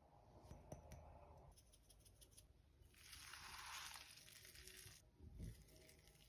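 Near silence, with faint scattered clicks early on, a brief soft hiss about three seconds in, and a soft low thump near the end.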